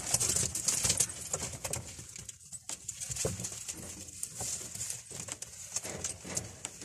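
Pigeons stirring in a wooden loft: irregular rustling and small clicks, with no clear calls standing out.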